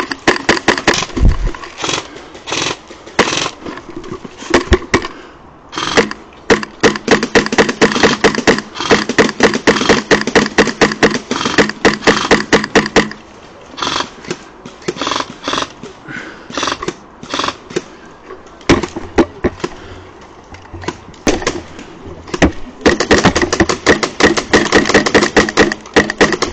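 Airsoft guns firing: rapid bursts of sharp shots, with scattered single shots between and a long burst near the end.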